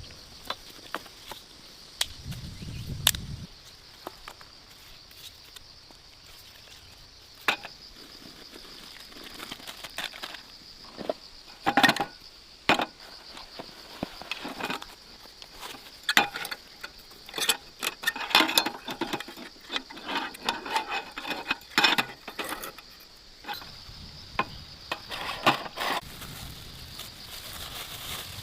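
A steady high insect chorus, like crickets, with many irregular sharp clicks, knocks and rustles over it, thicker and louder in the second half.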